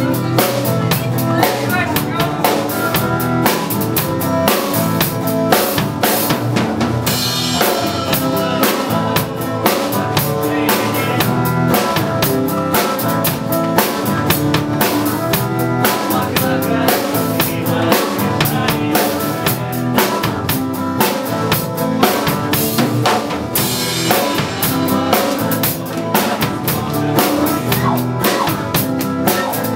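Music with a full drum kit keeping a steady beat.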